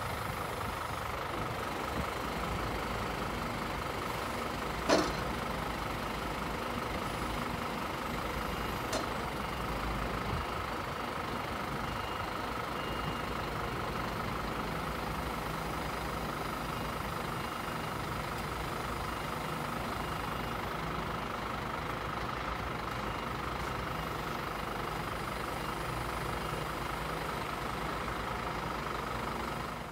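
Scania P270 truck's diesel engine running steadily while its loader crane is worked, with a steady high whine over the engine. A sharp metallic clack about five seconds in and a lighter one about nine seconds in.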